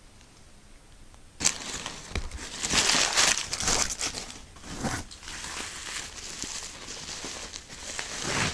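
Packaging crinkling and rustling as items are unwrapped by hand. It starts suddenly about a second and a half in, is loudest a couple of seconds later, and keeps on to the end.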